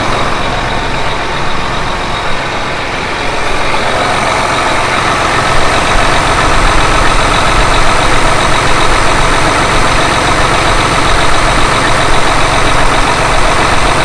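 Case IH farm tractor's diesel engine running, growing louder about five seconds in.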